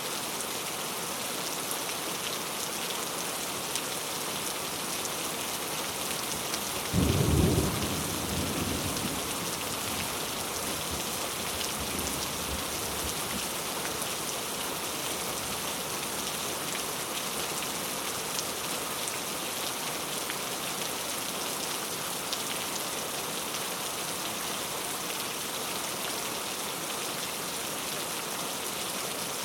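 Steady rain falling, with a sudden low clap of thunder about seven seconds in that rumbles away over the next couple of seconds.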